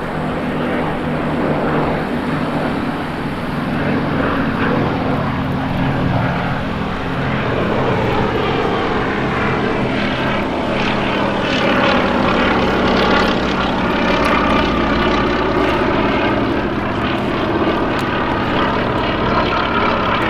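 Westland Lysander's nine-cylinder radial engine droning steadily as the aircraft flies its display. In the second half its pitch shifts as it passes by.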